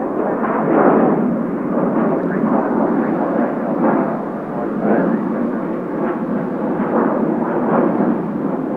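Jet airliner engines at high thrust: a loud, rough rushing noise with a crackle, swelling and fading every second or so.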